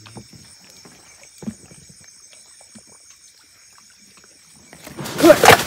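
Night insects shrilling steadily in several high tones over near-quiet, with a few faint rustles and a click about a second and a half in. About five seconds in comes a sudden loud crash and rustle through brush and leaf litter as a man lunges to grab a frog, with a voice calling out.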